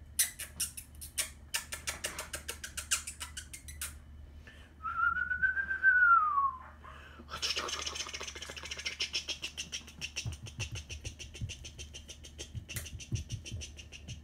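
A person whistles once, a single clear note that rises and then slides down, lasting about two seconds. Before and after it come quick runs of small sharp clicks.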